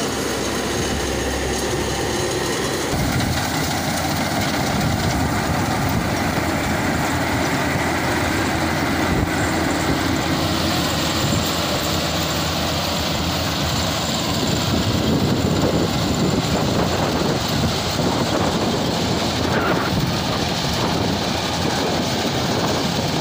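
Rice combine harvester running steadily, a dense, continuous mechanical noise.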